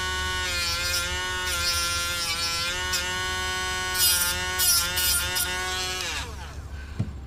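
Small battery-powered rotary tool with a cut-off disc running at a steady high whine, grinding the metal tabs on a small transformer, with bursts of grinding noise and slight dips in pitch as the disc bites. About six seconds in, it is switched off and its whine falls away, followed by a single thump near the end.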